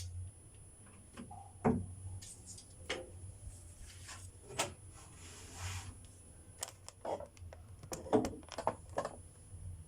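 Irregular light clicks and knocks of small objects being handled and set down, with a few soft rustles between them over a low steady hum. The sharpest knocks come about two seconds in and again near eight seconds.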